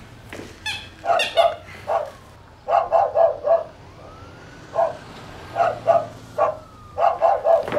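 A dog barking over and over in quick runs of several short barks, with brief pauses between the runs.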